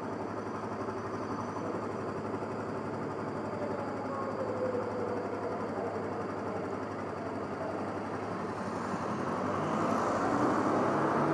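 Engine idling steadily under road noise, with a car passing close by near the end, growing louder as it goes.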